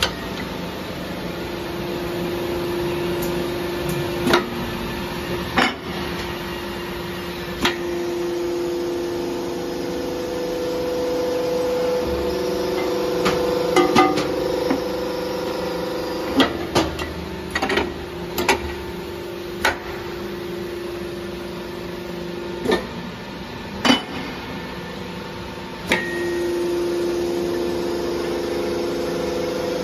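Solder billet peeling machine running: a steady motor hum whose tones shift now and then, with about a dozen sharp knocks at irregular intervals.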